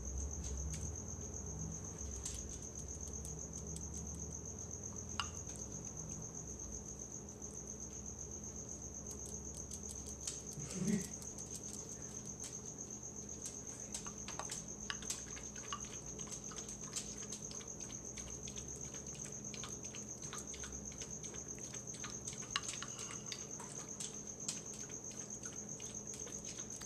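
Wooden spoon scooping guacamole out of a mortar bowl and dabbing it onto tacos: scattered soft clicks and taps, with a brief low murmur about eleven seconds in. A steady high-pitched tone runs underneath.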